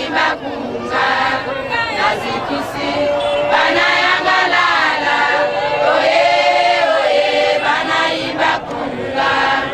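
A choir singing together, with long held notes that rise and fall.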